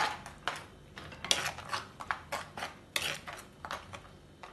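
Stainless steel spoon stirring thick curry gravy in an earthenware pot, clinking and scraping against the clay sides in an irregular run of sharp knocks, several a second.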